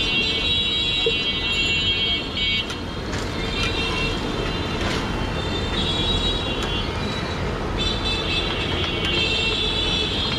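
Busy street traffic with a steady engine rumble and vehicle horns sounding on and off, several times.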